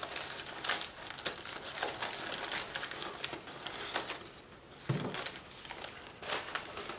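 Brown packing paper crinkling and rustling as a plant is unwrapped and lifted out of its parcel, in irregular crackles with a brief lull, and a dull bump about five seconds in.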